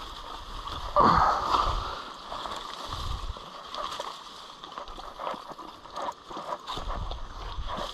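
Rustling of long, wet grass and handling sounds as pig dragger cords are looped onto a dead feral pig's legs, with a louder rustle about a second in.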